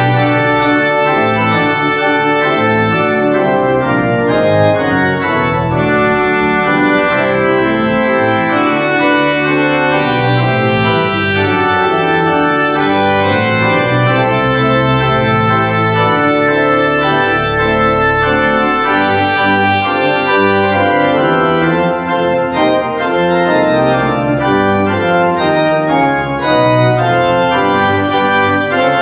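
Church organ playing, hands on the manuals and feet on the pedalboard: a steady piece of sustained chords over pedal bass notes.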